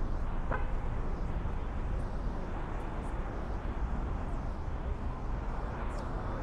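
City street ambience: a steady wash of traffic noise with a low rumble, and a brief high chirp about half a second in.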